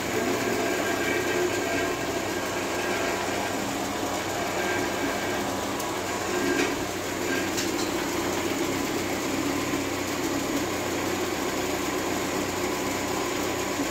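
Car engine idling steadily while hooked up to an engine diagnostic stand.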